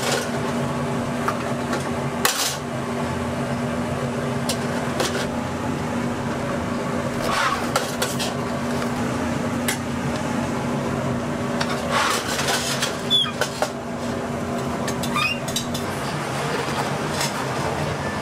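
Dishes and containers clattering as food is handled and packed, a few scattered clicks and knocks over a steady machine hum that stops near the end.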